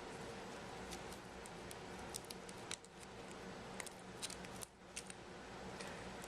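Faint small clicks and taps from handling a smartphone and its parts, scattered irregularly over a steady low background hum.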